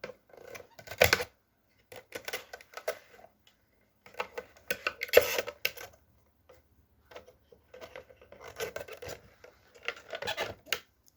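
Small plastic clips on a fuel pump assembly being pried loose: intermittent scraping and clicking, with sharper snaps about a second in and about five seconds in.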